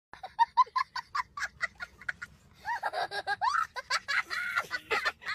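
Human laughter: a quick run of short giggles, then longer laughs that rise and fall in pitch.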